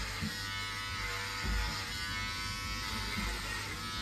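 Electric hair clippers running with a steady buzz as they cut hair close to the scalp.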